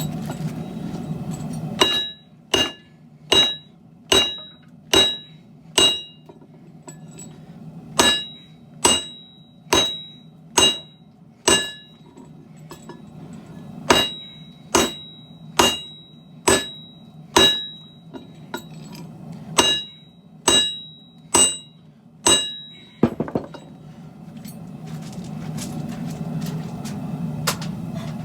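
Hammer striking a hot seven-layer Damascus billet on an anvil: four runs of five or six hard blows, about one a second, each with a bright metallic ring and short pauses between runs. A steady low rumble is heard before the hammering starts and again after it stops.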